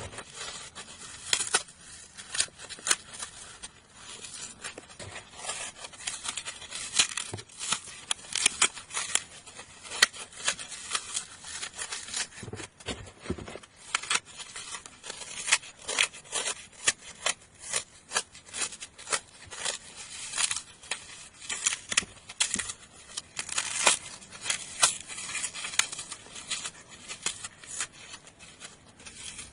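Dry floral foam being crushed and crumbled, close up: a continuous run of crisp, irregular crunches and crackles.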